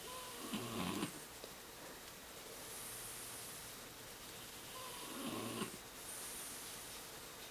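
French Bulldog snoring in its sleep: two rattling snores about five seconds apart, each opening with a brief thin whistle.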